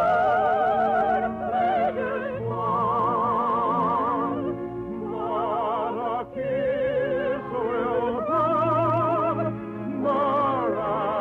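Operetta singing: full-voiced operatic singing with wide vibrato, holding long notes in several phrases, over sustained orchestral accompaniment.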